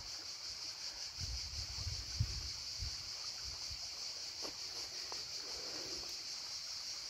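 Steady high-pitched chorus of insects, such as crickets, with a few low thumps in the first few seconds.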